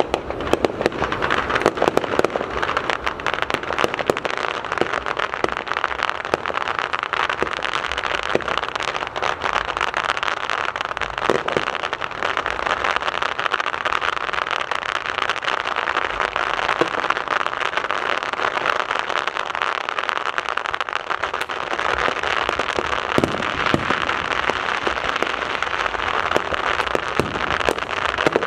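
Aerial fireworks crackling densely and continuously, a constant spray of fine pops, with a few louder bangs standing out.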